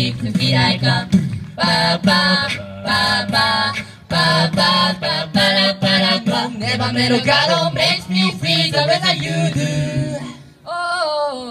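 A cappella group of mixed male and female voices singing through microphones and PA speakers, a bass voice holding a low line under the lead and harmony parts.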